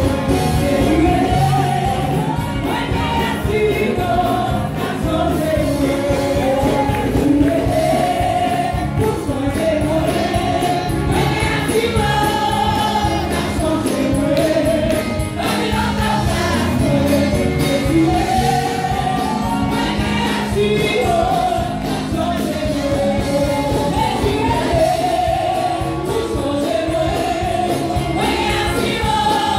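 A congregation singing a gospel worship song together, with hand clapping and tambourine jingles keeping a steady beat.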